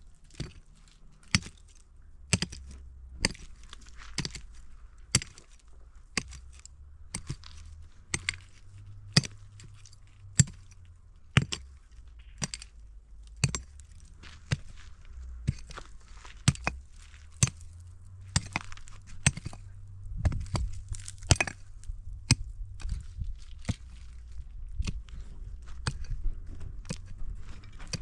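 Repeated sharp strikes, about one a second, steady through the whole stretch, over a faint low rumble.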